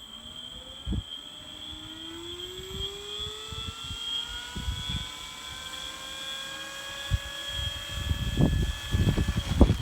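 Electric motor and propeller of an FMS 1400mm Corsair V3 RC warbird, a brushless motor on a 4S battery driving the stock prop, winding up in pitch over the first few seconds as the throttle comes up, then holding a steady tone. Wind buffeting the microphone grows loud near the end.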